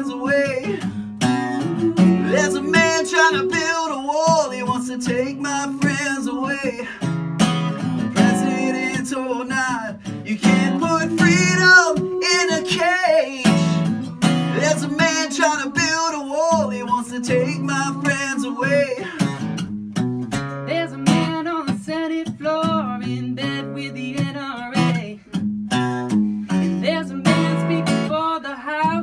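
Live acoustic song: a steel-string acoustic guitar strummed steadily while male and female voices sing together.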